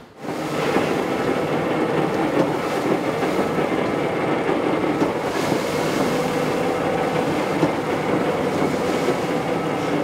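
Mobile shred truck's industrial paper shredder running, a steady dense mechanical noise with a faint rattle, cutting in suddenly at the start.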